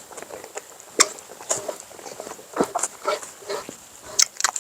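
Close-up eating sounds: irregular chewing, lip smacks and mouth clicks.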